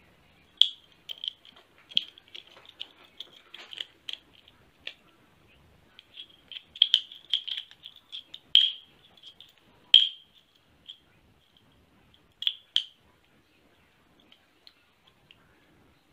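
Motorised-bike kit clutch lever being worked by hand: irregular small metallic clicks and rattles from the lever, its lockout button and cable fitting, with a few sharper clicks about eight and a half and ten seconds in.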